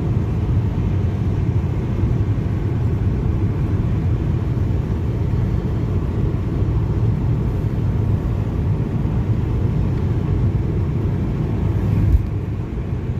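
Steady low road rumble of a car driving, with no clear rise and fall of a single pass-by. A brief thump comes near the end.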